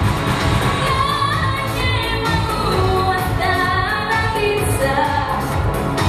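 Young female pop vocalist singing a melody into a handheld microphone over a backing track with a steady beat.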